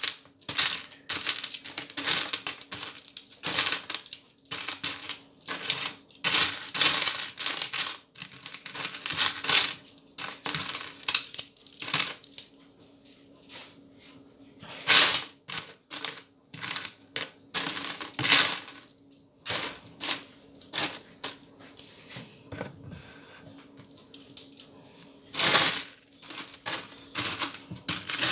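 Small copper euro-cent coins clinking and jingling against each other and an orange plastic bowl as hands scoop and sift through a heap of them: an irregular run of metallic clatters, with a few louder bursts where handfuls are dropped back.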